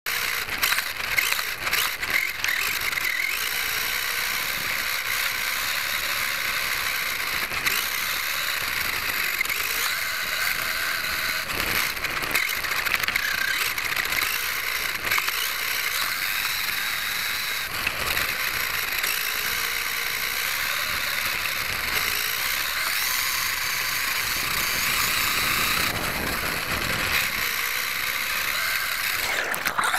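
Traxxas E-Revo VXL electric RC truck driving over grass, heard from a camera mounted on the truck: its brushless motor and drivetrain whine, rising and falling with the throttle, over a constant noisy hiss with many small knocks.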